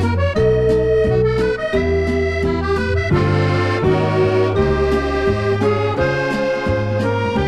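Background music: an instrumental track with melody and bass notes over a steady beat.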